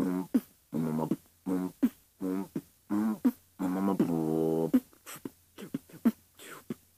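Solo beatboxer performing a beat: short pitched, hummed bass notes alternating with sharp mouth-click snares and hi-hats in a steady rhythm. A longer held pitched note comes about four seconds in, and lighter, sparser clicks follow near the end.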